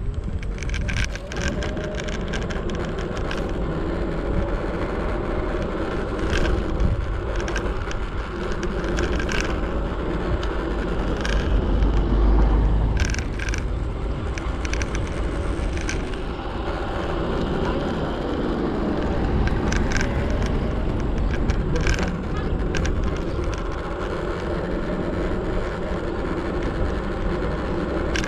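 Segway Ninebot ES4 electric scooter ridden over city pavement, its solid tyres rumbling steadily. Frequent short knocks and rattles come through as it jolts over bumps, with a heavier low rumble about twelve seconds in.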